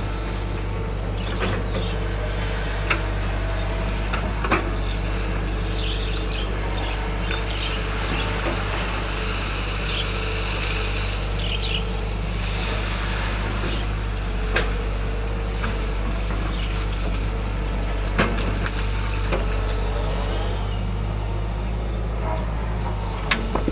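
Excavator's diesel engine running steadily under work, with a few sharp knocks scattered through it.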